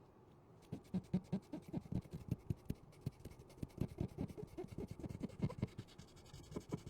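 Rapid, irregular scraping and clicking of small hand tools working on a phone during repair, starting about a second in.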